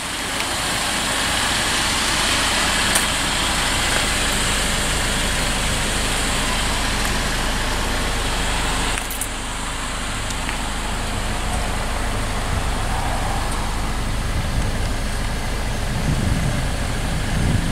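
A vehicle engine idling, with a steady hiss over it that eases a little about nine seconds in.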